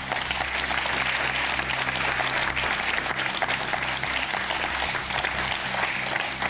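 Studio audience applauding steadily, with a music bed underneath; the applause eases off near the end.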